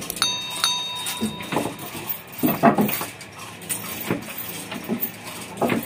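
Irregular metallic clanks and clinks of a chain block's chain and the hanging truck engine as it is lowered into place, several sharp knocks among them. A brief high ringing chime sounds near the start.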